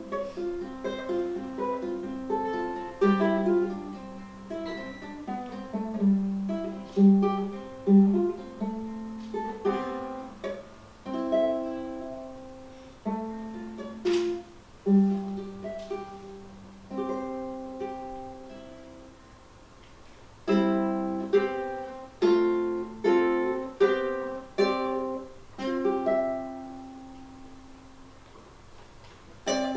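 Ukulele played solo with plucked notes and chords, a slow melody in which each note rings and dies away. The playing thins out twice, letting notes fade before the next phrase starts.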